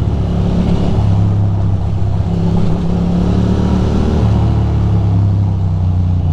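Ducati motorcycle engine running under way. Its pitch steps down and back up a few times as the rider works the throttle through a manoeuvre.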